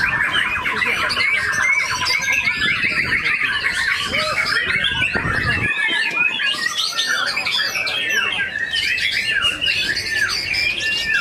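White-rumped shama (murai batu) singing a loud, varied song of rapid repeated chirps, trills and sweeping whistles, with other birds singing over it.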